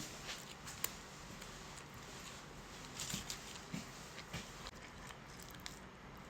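Close-miked eating: a person quietly chewing food, with scattered small clicks, crunches and soft mouth sounds.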